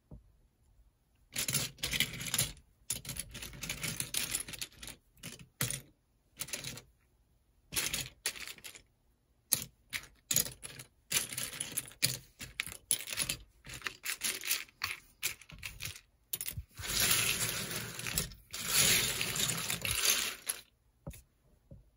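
Irregular handling noises, a run of clicks, clatters and rustles, of LEGO sets and their packaging being moved about, with two longer stretches of rustling near the end.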